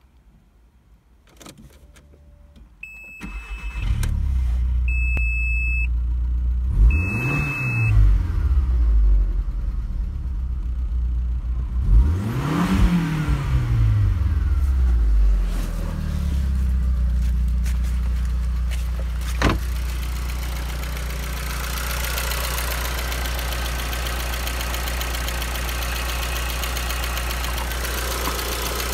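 Audi A3 8L's 1.8-litre turbocharged four-cylinder (ARZ) engine cranks and starts while the dashboard chimes beep a few times, then idles. It is revved twice in short blips, rising and falling, the second to about 3,500 rpm, and settles back to a steady idle. Near the end the idle is heard close up from the engine bay, with a brighter hiss over it.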